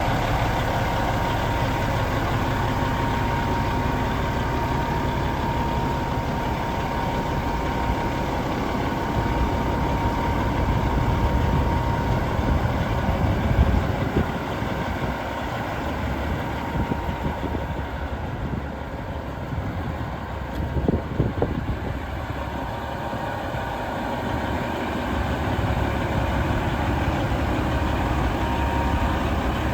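Caterpillar C15 diesel in a Peterbilt 379 semi-truck idling steadily, with a faint steady whine above the engine note. A couple of short knocks come about halfway through.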